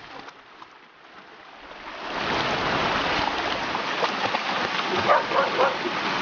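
Shallow creek water rushing over rocks. It rises to a steady rush about two seconds in, with dogs splashing through the water.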